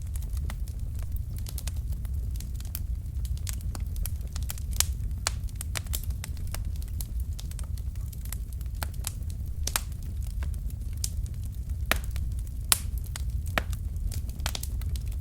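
Wood fire in a fireplace crackling: a steady low rumble of the flames with irregular sharp pops and snaps from the burning logs, a few of them louder.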